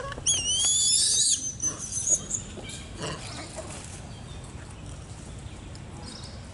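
A baby macaque's shrill, wavering squeals, loud for about a second and then trailing off by about two seconds in.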